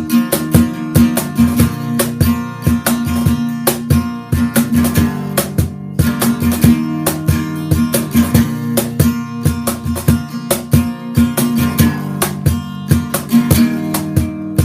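Instrumental passage of an acoustic song: a strummed acoustic guitar playing chords over a steady beat of cajon hits, with no singing.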